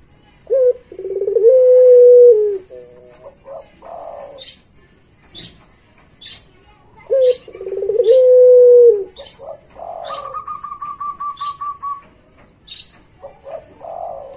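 Puter pelung dove cooing twice, each call a short note followed by a long, drawn-out coo of about two seconds. Short high chirps repeat in the background, with a quick trill about ten seconds in.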